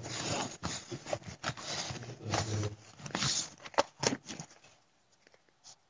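Rustling and handling noise, with several sharp clicks, coming in irregular bursts that die away about two-thirds of the way through.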